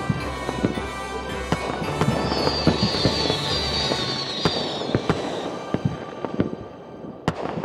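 Fireworks popping and crackling in a steady string of small bangs, with a high whistle sliding down in pitch through the middle and a sharper bang near the end. Music plays under the first second or so.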